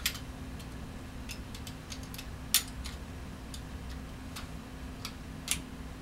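Scattered small hard-plastic clicks and taps as an action camcorder is worked into its plastic mount, which is not going in. Two clicks stand out louder, one about two and a half seconds in and one near the end.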